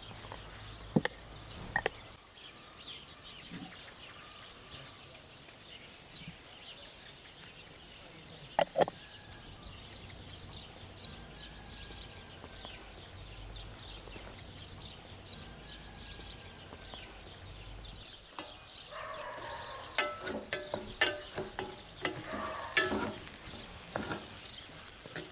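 A few sharp clicks at the start, then faint chirping birds over quiet outdoor ambience for most of the stretch. About three quarters of the way through, onions fry in a stainless-steel pot while a wooden spoon stirs them, with dense clatter and metallic ringing from the pot and its lid.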